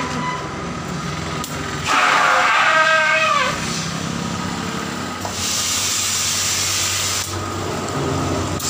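Compressed air hissing steadily from an air hose chuck into the inner tube of a tractor tyre for about two seconds past the middle. Earlier, about two seconds in, a loud pitched sound slides downward for a second and a half, the loudest thing here.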